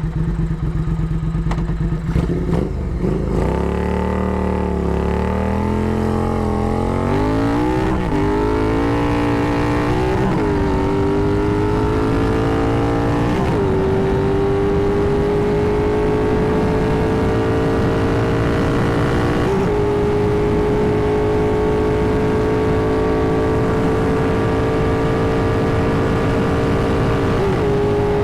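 Triumph Thruxton R 1200 cc parallel twin with Meerkat racing mufflers, loud. It runs steadily at low revs, then pulls away, revving up with three upshifts in quick succession. After that it cruises at a steady, slowly climbing engine note, with two brief dips.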